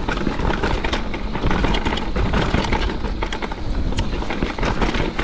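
Mountain bike riding fast down a dirt trail: steady wind rumble on the microphone over tyre noise on dirt, with frequent clicks and rattles from the bike over the rough ground.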